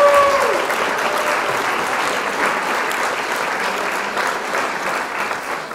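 Crowd applause, many hands clapping, fading out near the end.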